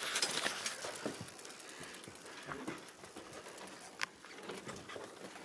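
Faint rustling and light clicking from a handheld camera being moved against clothing, with one sharp click about four seconds in.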